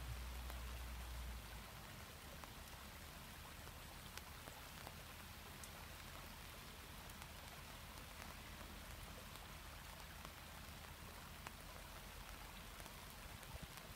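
Faint rain falling, with many separate drops ticking on surfaces. A low rumble stops about a second and a half in.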